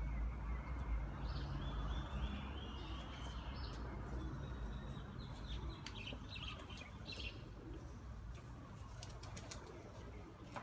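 Birds chirping in short high calls over a steady low rumble, with a run of chirps and clicks in the second half.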